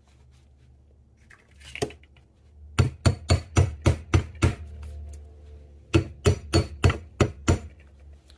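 Hammer striking a silver-plated wire spiral on a steel bench block. One strike comes first, then two runs of six or seven quick strikes, about four a second, with a short pause between the runs.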